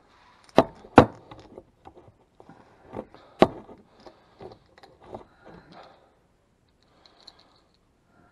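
Sharp knocks on a wooden workbench, two about a second in and two more about three seconds in, followed by lighter clicks and scrapes of small objects being handled on the bench top.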